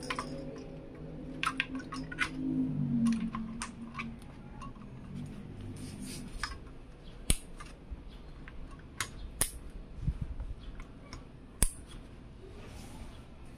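Plastic and metal clicks and light clatter as an Intel Laminar RM1 stock cooler is set onto a motherboard, followed by four sharp snaps spread over the second half as its four push-pins are pressed home into the mounting holes.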